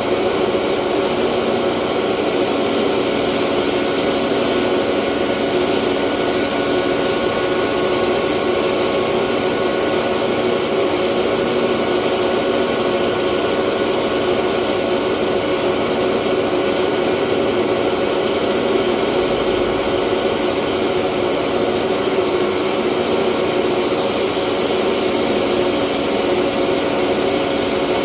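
Rice mill running steadily: a loud, even machine whir with a constant hum, no change in speed.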